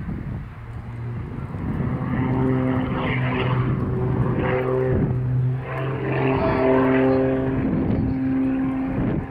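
Oracle Challenger aerobatic biplane's piston engine and propeller at full power as it climbs straight up. It makes a steady, pitched drone that swells over the first two seconds, with a short dip about halfway through.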